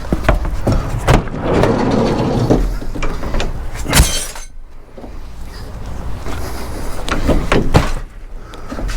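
Pieces of heavy scrap steel being picked up from a kerbside pile and loaded, with scraping and a series of metal knocks and clanks. The loudest bang comes about four seconds in, with another cluster of knocks near the end.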